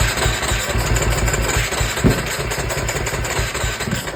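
Electric starter cranking the KTM 350 SX-F's single-cylinder four-stroke engine in a steady rhythm without it catching, stopping at the end. The engine turns over but won't fire, which the owner puts down to a fuel-delivery problem.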